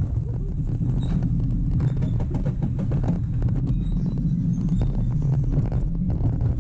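Roller coaster train running along its steel track: a steady low rumble with a fast, continuous rattle of clicks from the wheels.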